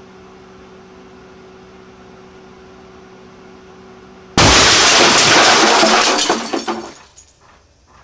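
Microwave oven running with a steady hum, then about four seconds in the sealed bottle of superheated water inside it bursts in a sudden, very loud steam explosion that tears the oven apart. The blast fades over a couple of seconds into scattered clatters of falling debris.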